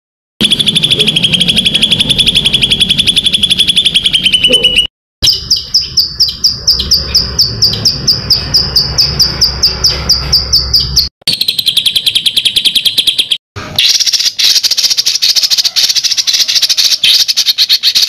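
Songbird calls for a masteran song-tutor track: several recordings of fast, repeated high-pitched notes and trills spliced one after another. Each section cuts off abruptly, with brief silent gaps between them; the second section is a run of sharp notes about three a second.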